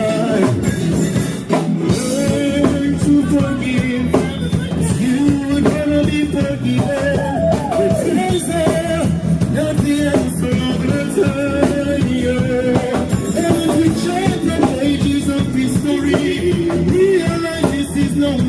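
Live reggae band music with a steady drum beat and a singer's voice.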